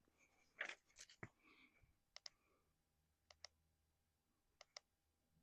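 Near silence with a few faint, short clicks, mostly in quick pairs.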